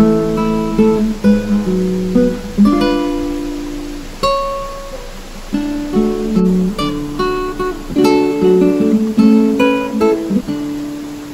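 Background music: acoustic guitar playing picked and strummed chords, fading down near the end.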